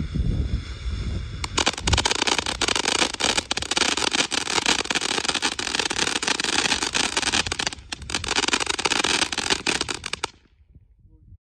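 A Cuckoo ground fountain firework (whistler with crackling balls) going off. A steady high whistle plays for the first second and a half. Then a dense, loud crackling runs until about ten seconds in and dies away.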